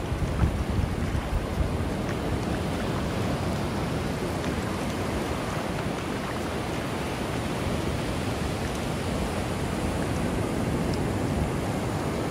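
Ocean surf washing steadily onto the beach, with wind buffeting the microphone in the first couple of seconds.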